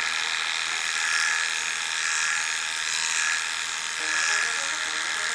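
Electric pet clipper running steadily as it shaves through a long-haired cat's coat: a continuous high buzz that swells slightly in level now and then.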